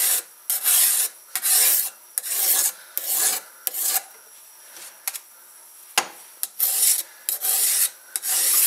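Hand-held flat file rasping along the steel edge of a chainsaw bar in repeated strokes, about one a second, taking off the burr that the chain has worn onto the bar's edge. The strokes pause for about two seconds midway, then start again after a sharp click.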